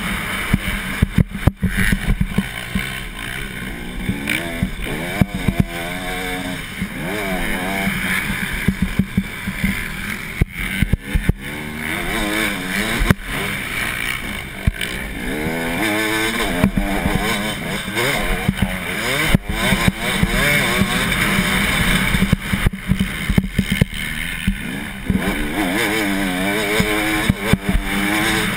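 Motocross dirt bike engine revving hard and dropping back again and again as it is ridden around the track, with a steady rush of wind noise and sharp knocks now and then.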